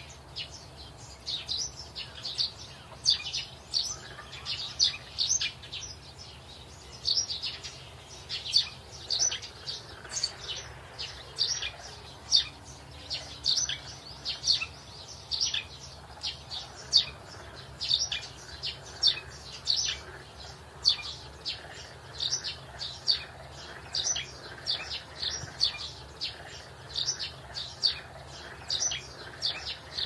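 Great crested grebe chicks giving short, high-pitched begging peeps, a few a second without a break, as they are fed fish.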